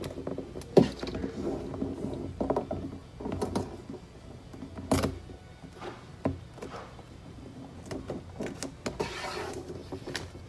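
Self-adhesive contact paper being worked by hand along the edge of a kitchen sink: a few sharp clicks and taps, then a papery rustle about nine seconds in as a strip of backing is peeled away.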